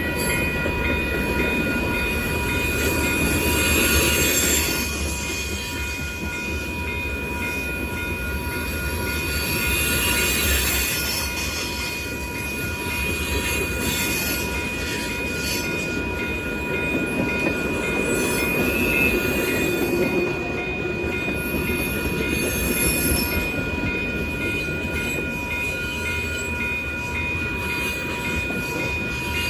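Freight cars of a long manifest train rolling past with a continuous rumble, while steel wheels squeal on the rail in steady high-pitched tones.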